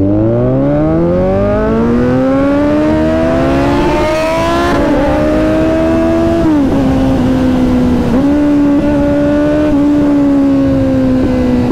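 Kawasaki Z900 inline-four engine through an aftermarket performance exhaust, pulling away under acceleration. The revs climb steadily for about four seconds, drop at gear changes about five, six and a half and eight seconds in, then settle into a steady cruise that slowly eases off.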